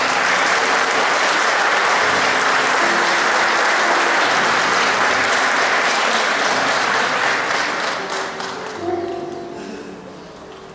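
Audience clapping hands in applause, full for about eight seconds, then dying away near the end.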